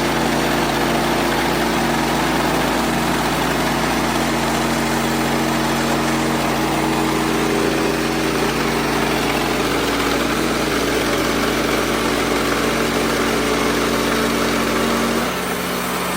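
Engine of a Wood-Mizer LX55 band sawmill running steadily while the band blade saws through a poplar log, making the last slab. About fifteen seconds in the sound drops and the engine note changes as the cut ends.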